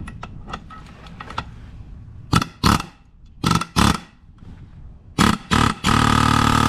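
Pneumatic air hammer firing in short bursts, then in a longer run near the end, beating on a tight-fitting rubber bushing pressed into a steel track bar to drive it out.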